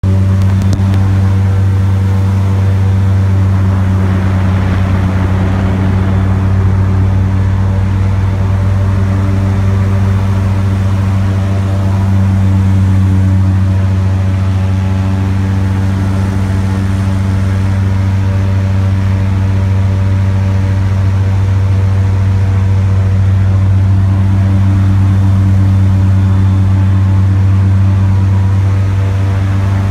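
Airboat's engine and propeller running steadily while the boat is under way: a loud, low drone that holds one pitch.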